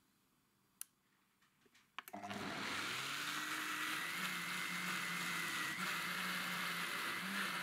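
Bosch high-speed blender: two button clicks, then about two seconds in the motor starts, rises quickly in pitch and runs steadily with a high whine, blending softened cooked apples into purée.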